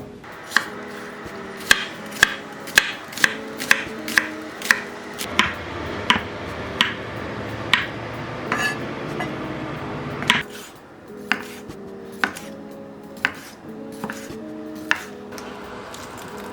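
Kitchen knife chopping on a cutting board: a run of sharp, unevenly spaced strokes, roughly two a second, over soft background music.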